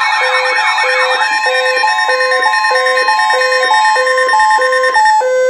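Electronic emergency alert tones layered together: a beep repeating about one and a half times a second, a warbling siren that stops about a second in, and steady and alternating tones. All of them cut off abruptly at the end.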